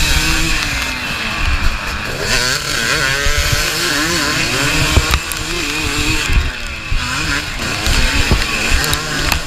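Dirt bike engine revving hard and accelerating, its pitch climbing and dropping over and over as the rider opens the throttle and shifts, over a steady hiss.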